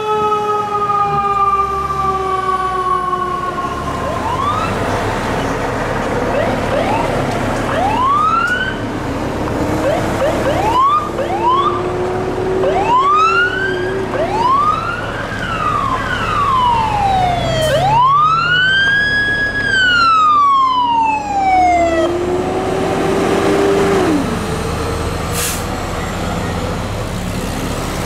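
Emergency vehicle siren. It falls slowly in pitch at first, then gives a run of short rising sweeps, then one long rise and fall, over the low rumble of the vehicles in traffic.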